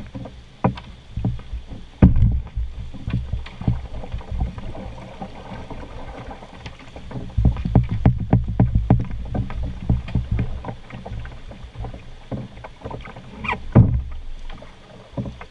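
Canoe pole knocking and scraping on river rocks and against the canoe while poling downstream through shallow rapids, over rushing river water and low thumps on the hull. The sharpest knocks come about two seconds in and near the end.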